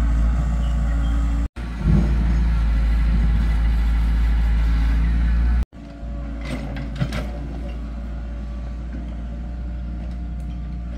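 Excavator's diesel engine running steadily. The sound drops out abruptly twice, and a few light knocks come in the second half.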